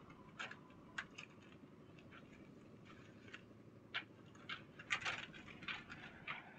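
Short, irregular scrapes and crunches of a long-handled hand tool working wet concrete mix on a roof slab. The loudest cluster of strokes comes about five seconds in.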